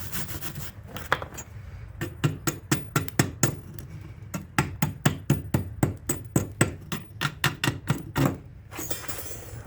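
Hand hammer striking hot steel on an anvil in a quick, even series of light blows, about three a second, knocking the forge scale off the billet.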